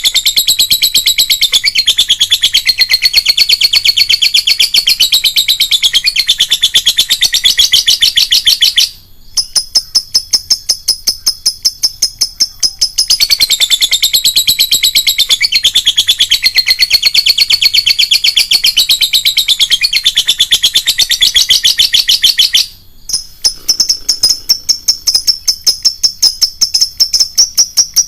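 Lovebird singing its long, rapid chattering song (ngekek), a dense, unbroken stream of high chirps. Twice, about a third of the way in and again near the end, it thins briefly to a simpler, narrower run of fast notes before the full chatter returns.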